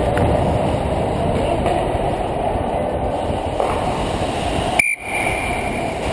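Steady rushing noise from a helmet-mounted GoPro Hero 2 on a skating ice hockey player: wind over the camera housing mixed with skate blades on the ice. About five seconds in there is a sharp click and a brief dropout, followed by a short steady high tone lasting about a second.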